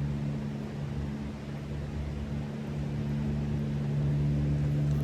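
A motor running steadily with a constant low hum, over a general background hiss.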